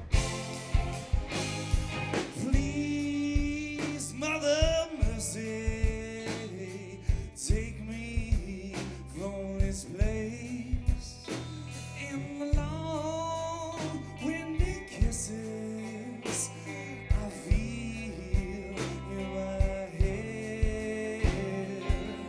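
Live rock band playing a grunge ballad: drum kit, electric guitar and bass, with lead vocals over them.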